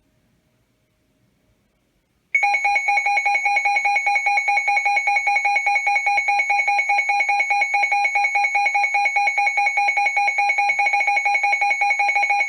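Emergency alert tone broadcast over NOAA Weather Radio: a loud, steady, harsh electronic tone that starts suddenly about two seconds in after near silence. It is the attention signal that announces an incoming severe thunderstorm warning.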